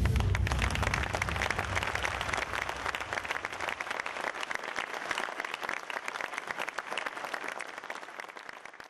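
Audience applauding, a dense steady clapping; under it the bass of the preceding dance music dies away in the first few seconds, and the applause fades out at the very end.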